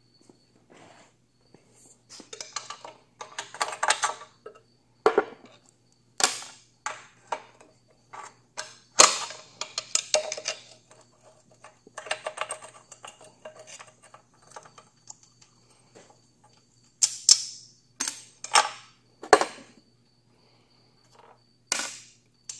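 A screwdriver and small metal parts clinking, tapping and scraping against a Corvair flat-six's cast-iron exhaust manifold and its nuts and lock tabs. These are irregular metal clicks with a few short scraping clusters.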